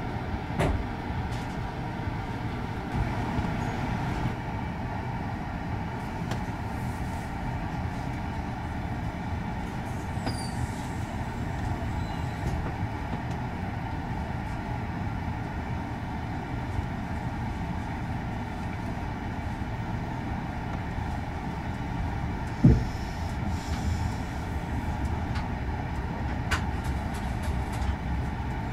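Steady rumble of a moving train heard inside a couchette car: wheels rolling on the rails. A few light clicks, and one loud sharp knock about three quarters of the way through.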